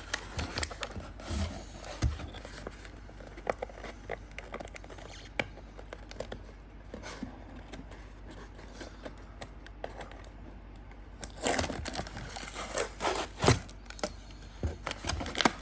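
Packaging and loose parts being handled: scattered clicks, scrapes and rustling, quieter in the middle and busier near the end.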